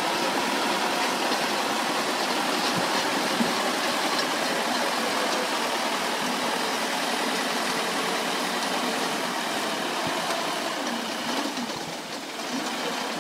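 Crawler bulldozer's diesel engine running steadily as it works and climbs the gravel bank, over the rush of a fast river.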